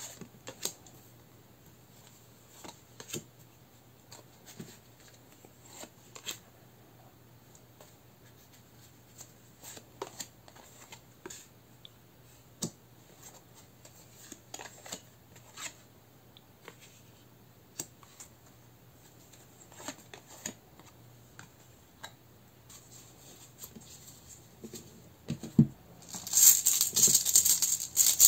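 Tarot cards being handled and laid down on a wooden table, sparse soft taps and card slaps about once a second. About two seconds before the end, a cloth pouch of runes is shaken, a loud continuous rattle.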